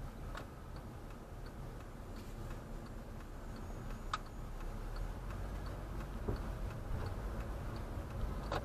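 A car's turn-signal indicator ticking steadily, just under two clicks a second, over the low hum of the engine and road inside the cabin.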